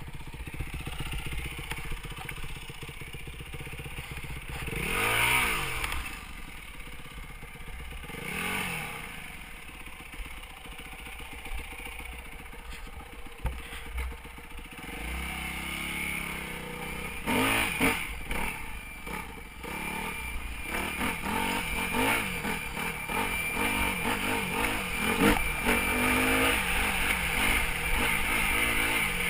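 Yamaha WR250F's single-cylinder four-stroke engine revving up and down as the dirt bike is ridden off-road, with clatter from the rough ground. A thin, steady high whine rides over the engine in the second half.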